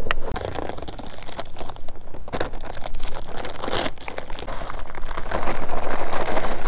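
Plastic bag of fish food crinkling and rustling as it is handled to refill a pond feeder, with a few sharp clicks. It gets louder near the end.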